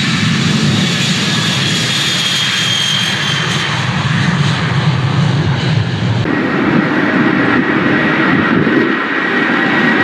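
Four-engined Boeing 707-type jetliner's engines at take-off power through the take-off roll and lift-off: a loud, heavy low rumble under a high engine whine. About six seconds in, the sound cuts abruptly to a different jet noise with a steady high whine.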